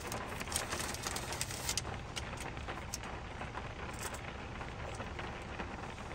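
Light, steady patter of water drops landing on surfaces, with scattered sharp ticks over a low rumble.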